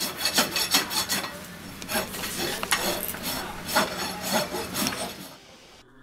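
Farrier's rasp filing a horse's hoof: repeated rough strokes, with a short break about a second in, dying away near the end.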